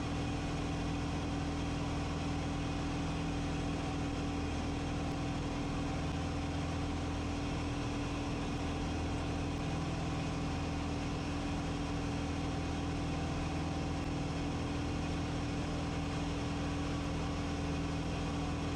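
An RV-14 light aircraft's piston engine and propeller droning steadily in cruise flight, heard inside the cockpit.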